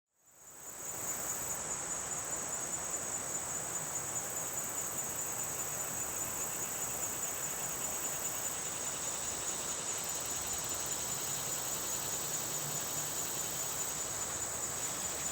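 Steady chorus of insects, a high continuous shrill trill, over an even rushing hiss; it fades in over the first second.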